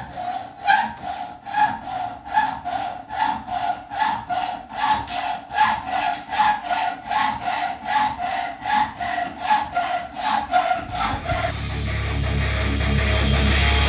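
Hacksaw cutting metal by hand in steady back-and-forth strokes, about three a second. The sawing stops near the end and background music with a heavy bass comes in.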